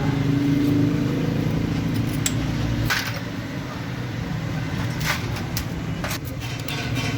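Steady low engine rumble of a vehicle running nearby, with a held hum for the first three seconds, and a few sharp metallic clinks of tools and parts.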